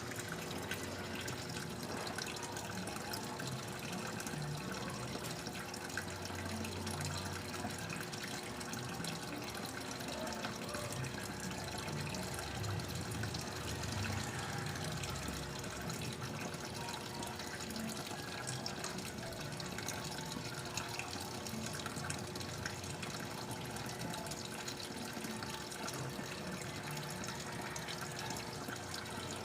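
Water running steadily into an automatic washing machine's tub as it fills, a slow fill before the wash begins.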